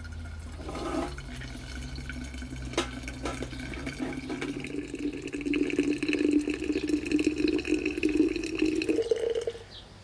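Hot water running from a brass samovar's tap into a thermos jug, the filling sound growing louder about halfway through, rising briefly in pitch and then stopping shortly before the end as the tap is shut.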